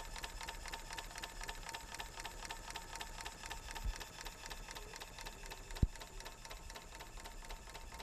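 1/10th-scale Markie ploughing engine model running on compressed air at about 10 psi, its motion setting up a rapid, even ticking. A single sharp knock stands out about six seconds in.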